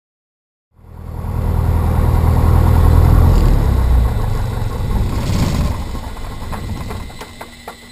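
Piper PA-28's piston engine and propeller heard inside the cockpit, running loudly and then winding down as the engine is shut down. A few sharp clicks come near the end.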